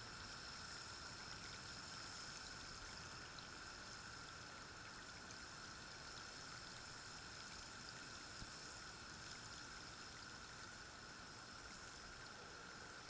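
Faint, steady water-like hiss with a steady high-pitched hum over it.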